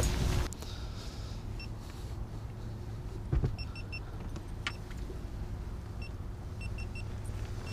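Low steady hum of the fishing boat's motor, with short high electronic beeps in two quick clusters, about two seconds in and again about six seconds in, and a single knock midway.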